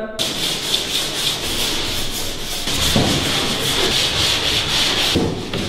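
Hand sanding a wooden panel with a sanding sponge: quick back-and-forth rubbing strokes making a steady, scratchy hiss.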